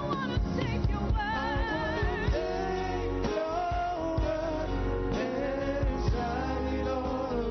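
Gospel praise song: a singer's voice holding wavering, vibrato notes over a band accompaniment with a steady bass.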